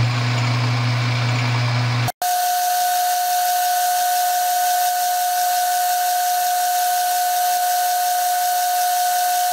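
Metal lathe running a roughing cut: a low steady motor hum with hiss at first. After a brief dropout about two seconds in, a steady high whine over loud hiss.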